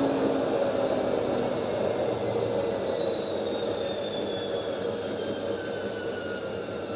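Automatic washing machine's drum coasting down at the end of its spin cycle: a mechanical hum with a whine that falls slowly in pitch as the sound gradually fades.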